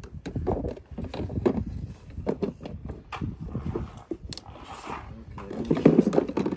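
Plastic seat of a Power Wheels ride-on truck being set in place and pressed down onto the body: a run of irregular plastic knocks, clicks and clatter, busier near the end.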